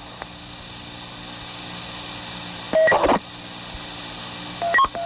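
Police dispatch radio recording between transmissions: the steady hum and hiss of the open channel, broken about three seconds in and again near the end by short loud radio bursts with brief beep tones.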